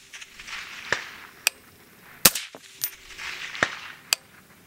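A single shot from a suppressed .308 AR-10 rifle about two seconds in, a sharp crack, with several fainter sharp clicks around it and wind noise on the microphone.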